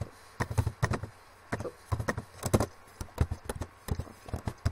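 Typing on a computer keyboard: irregular clusters of key clicks.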